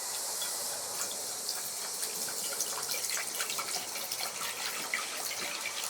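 Water running steadily into a basin with washing-up liquid in it, with small splashy ticks, working up a few bubbles.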